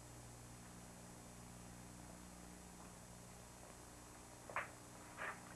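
Near silence: a steady low hum on an old 1950 television soundtrack, with two faint, brief sounds near the end.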